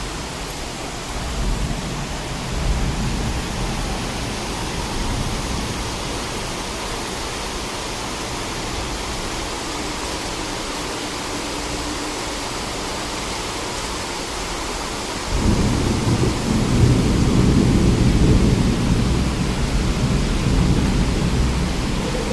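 Steady rain hissing. About two-thirds of the way through, a deep rumble of thunder comes in and rolls on.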